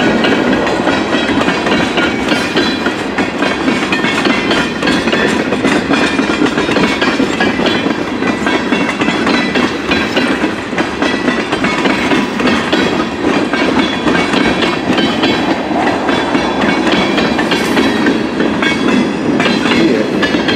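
CN mixed freight train's cars rolling past at close range, tank cars then boxcars and centerbeam flatcars: a steady loud rumble of wheels on rail, with a running scatter of clicks from the wheels over the rail joints.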